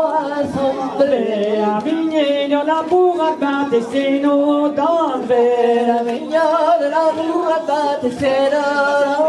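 Two women singing an unaccompanied Breton dance song, a danse Sizun, in a continuous melody of held notes.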